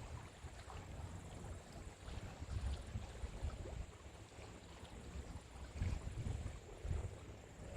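Soft ocean waves washing onto the shore: a steady, gentle wash of water with a few low surges as swells come in, two of them close together near the end.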